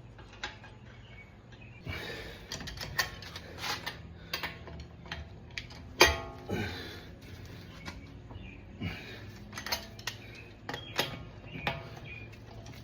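Scattered metallic clicks, clinks and knocks of tools and parts being handled at a truck's front wheel, with one sharper knock about six seconds in.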